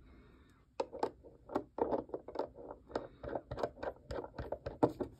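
Kakimori brass dip nib scratching across paper in a quick run of short strokes, about five a second, starting about a second in.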